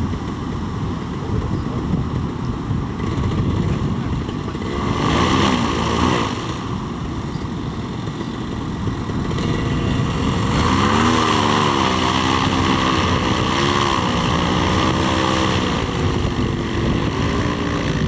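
Paramotor trike's engine and propeller revving up and down, with a burst of throttle about five seconds in and a longer spell of rising and falling revs in the second half. Wind buffets the microphone the whole time.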